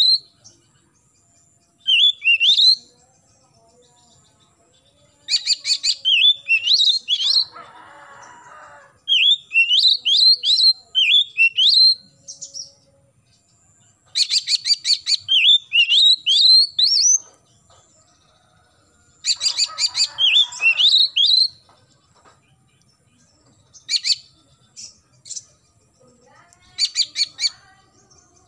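Oriental magpie-robin singing in bursts of a few seconds, each a quick rattle of clicks followed by a run of rising whistled notes, with short pauses between. Twice a brief rasping sound sits beneath the song.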